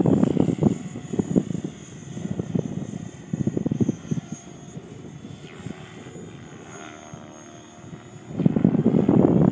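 Radio-controlled helicopter flying aerobatics at a distance, its rotor and motor sound faintly rising and falling in pitch as it swings around. Gusty wind buffets the microphone at the start and again near the end, louder than the helicopter.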